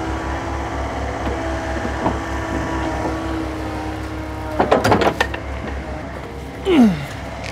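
Excavator's diesel engine idling with a steady, even low pulsing. A short clatter of knocks comes a little past the middle.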